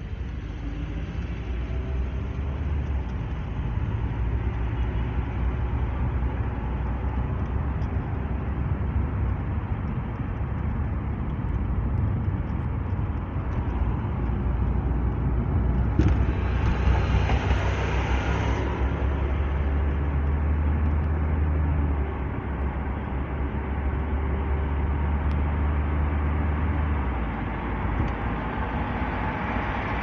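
Car driving, heard from inside the cabin: a steady low engine and tyre rumble with road noise. About halfway through, a louder hiss swells for two or three seconds.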